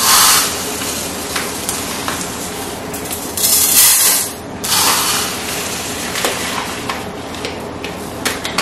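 Dry uncooked rice being poured and scooped out for measuring, a grainy hiss heard three times: at the start, at about three and a half seconds and at about five seconds.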